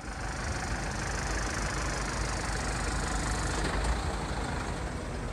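London black cab's diesel engine idling with a steady low rumble.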